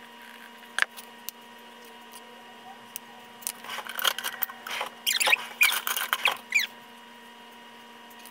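Squeaks and scrapes of kitchenware being handled on a stone countertop, clustered from about 3.5 to 6.6 seconds in, with a single click about a second in, over a steady faint electrical hum.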